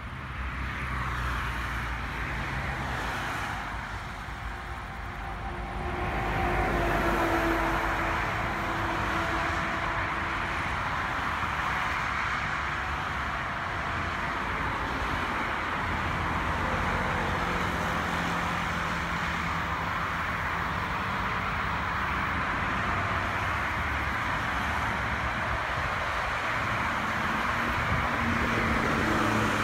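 Combine harvester running while cutting and threshing wheat: a steady machine drone with a low engine rumble, growing a little louder about six seconds in and then holding.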